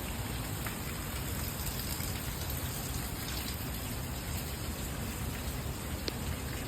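Steady rain falling, with scattered drop ticks and one sharper drop about six seconds in.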